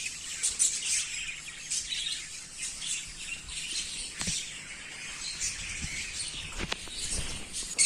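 Many caged birds in an aviary chirping and twittering together in a dense, continuous chatter, with a couple of faint knocks about four and seven seconds in.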